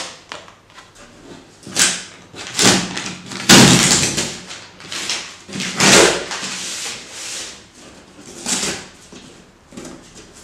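Cardboard shipping box being opened by hand, its flaps pulled open and rubbed in a series of irregular scraping, rustling bursts; the loudest come about four and six seconds in.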